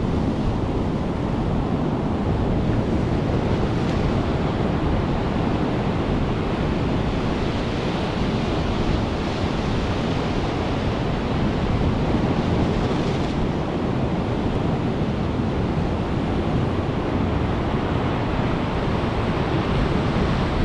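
Rough ocean surf breaking and washing against a rocky shore, a steady rushing noise, with wind buffeting the microphone.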